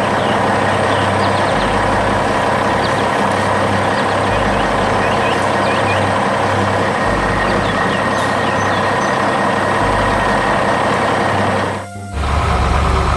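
Heavy construction machinery engines running steadily, with background music underneath. The sound drops out briefly near the end.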